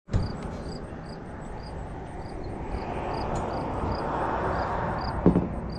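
Outdoor background noise: a distant rush that swells over a few seconds and fades again, like a passing vehicle, with a faint high chirp repeating about every third of a second and a single soft knock near the end.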